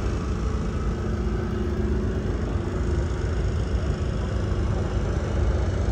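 Steady low rumble of motorcycle engines running, heard as outdoor traffic background.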